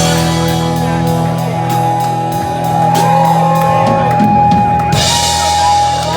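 Live rock band playing, with drum kit and electric guitar over a steady beat. A long note is held through the second half.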